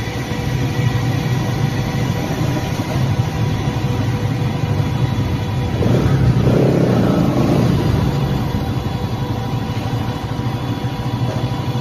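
Bajaj Pulsar NS200's single-cylinder engine running under way, getting louder for a couple of seconds about halfway through as it is opened up.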